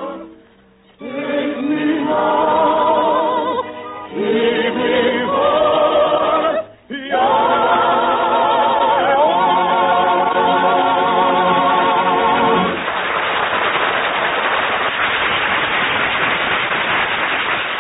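Operetta singing by voices and a choir, holding long notes with vibrato, with two brief breaks. About 13 seconds in the singing ends and a studio audience applauds. The recording is a narrow-band old radio broadcast.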